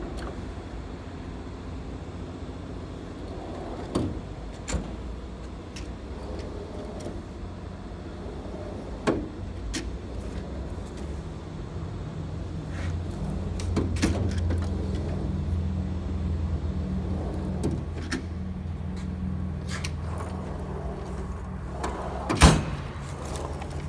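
Steady low hum with scattered clicks and knocks, and one louder knock near the end.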